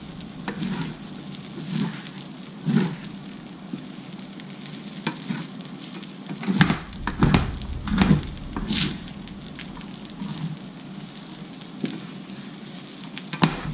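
Fried rice and beaten egg sizzling in a hot pan while a utensil folds and stirs them, scraping against the pan. The scraping strokes come thickest about halfway through.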